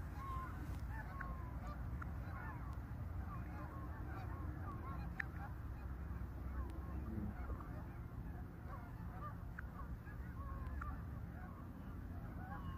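A flock of geese honking, many short calls overlapping throughout, over a steady low rumble.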